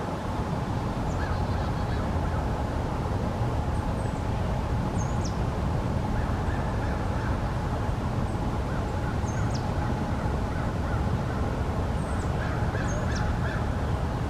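Hooded mergansers croaking in courtship display, over a steady low background rumble. Short, sharply falling high chirps from a small bird come every second or two.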